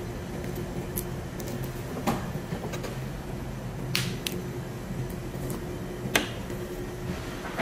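Sharp clicks and light taps of a boning knife against a plastic cutting board as a whole chicken is cut up, three louder clicks about two seconds apart, the last the loudest. A steady low hum runs underneath.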